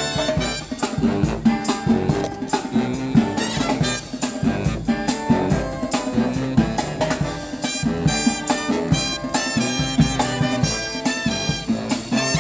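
Marching band playing an upbeat tune: brass instruments carrying the melody over a steady drum beat.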